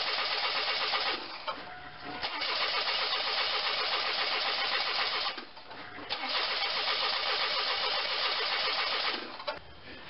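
Starter cranking the 2.4 L Twin Cam four-cylinder engine of a 1997 Pontiac Grand Am in three bursts of about three seconds each, with short pauses between, and the engine never firing. This is a crank-but-no-start fault, here caused by wiring pulled out of the crankshaft position sensor.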